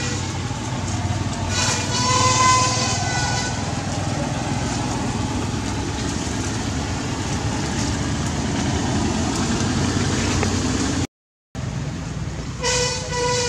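Steady low rumble of road traffic, with a vehicle horn sounding twice, once about two seconds in and again near the end. The sound cuts out for a moment about eleven seconds in.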